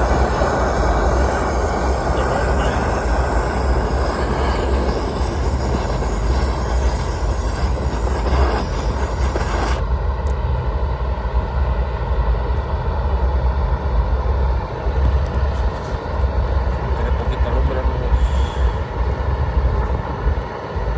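Propane roofing torch burning with a steady rushing flame, heating a modified-bitumen patch so it will stick. About ten seconds in the flame noise stops abruptly, and a low rumble carries on.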